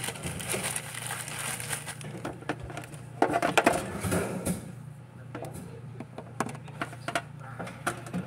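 Plastic bread bag crinkling as it is handled and opened, with a louder burst of crinkling about three to four and a half seconds in, then scattered light clicks and knocks.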